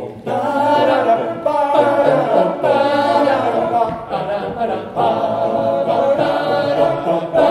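Men's a cappella group singing in harmony, unaccompanied, in short sustained phrases.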